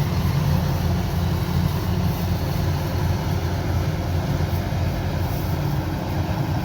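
Combine harvester's diesel engine and threshing machinery running steadily with a deep, even hum.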